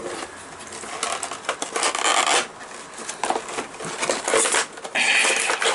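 Cardboard box packaging being pulled and torn open by hand: rubbing, scraping and tearing in several spells, loudest near the end.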